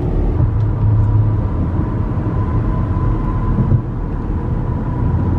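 Road noise inside a moving car's cabin at highway speed: a steady low rumble of tyres and engine, with a thin steady high whine through most of it.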